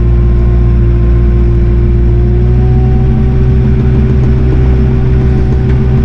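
Kioti RX7320 tractor's diesel engine running steadily under way, heard from inside the closed cab, with a steady whine that rises slightly in pitch about halfway through.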